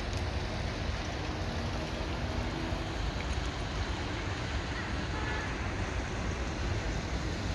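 Steady low rumble of a hydraulic excavator's diesel engine working a demolition site, with a faint engine hum in the first few seconds and no crashes of falling rubble.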